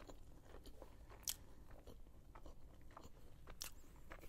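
Close-miked chewing of a mouthful of shawarma: quiet, wet mouth sounds with small clicks, and two sharper crunchy clicks, about a second in and again past three seconds.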